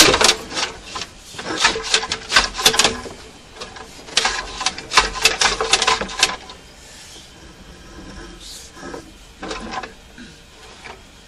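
Sewer inspection camera's push cable being fed into the line, with rapid clicking and rattling in two spells, the second ending about six seconds in, then a few scattered knocks.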